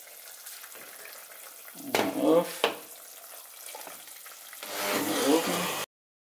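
Pot of broccoli soup simmering with a steady hiss, with a sharp clink a little over two seconds in. Near the end a louder churning stretch as the Bosch immersion blender runs in the soup, cut off abruptly.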